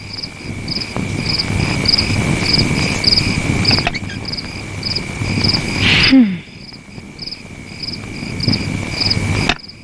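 Night-time crickets: a steady high trill with a chirp repeating a little less than twice a second. Underneath is a band of rough noise that stops abruptly near the end, and a brief sound falling in pitch about six seconds in.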